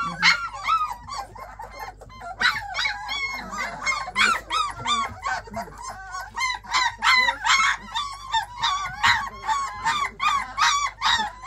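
A litter of young puppies yipping and squealing: many short, high calls overlapping one another, sparser at first and much busier from about two seconds in.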